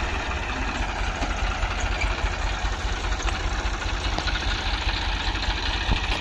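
Diesel tractor engine idling steadily.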